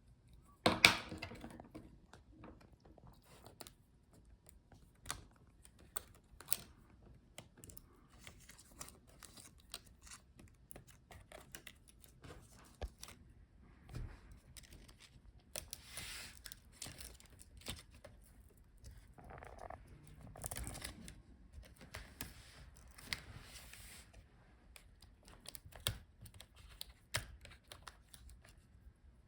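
Faint, scattered small clicks and short scraping, rustling noises as cable connectors are unplugged from a laptop motherboard and their ribbon cables pulled free. The loudest click comes about a second in.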